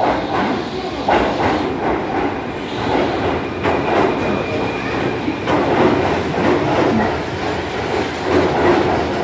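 Keihan 8000 series electric train pulling into an underground station platform, its wheels clacking over the rail joints as the cars roll past. A steady high tone sounds for a few seconds in the middle.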